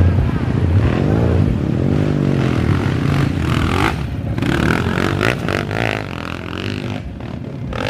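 Enduro dirt bike engine revving hard and unevenly, its pitch rising and falling again and again as the throttle is worked.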